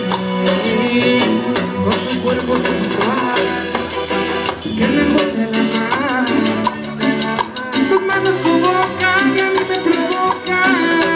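Live Latin dance band playing on stage, with percussion keeping a steady beat and melody lines over it.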